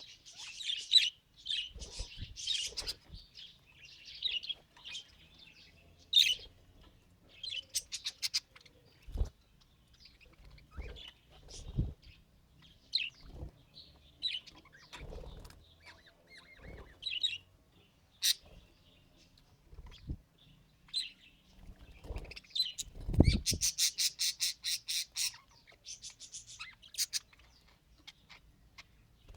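Pet budgerigar chirping and chattering in short high calls, with a fast rattling run of clicks about two-thirds of the way through. A few low thumps come in between the calls.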